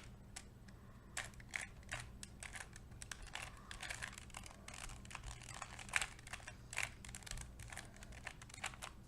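2x2 Rubik's cube (pocket cube) faces being turned by hand: rapid, irregular plastic clicks and clacks, several a second, as the cube is scrambled.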